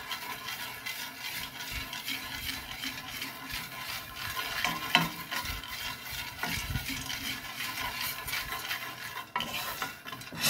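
A wooden spoon stirring and scraping coffee beans around a hot pan as they roast, the beans rattling across the pan, with scattered small crackles and a sharper pop about halfway through: the crackling of the beans in the roast.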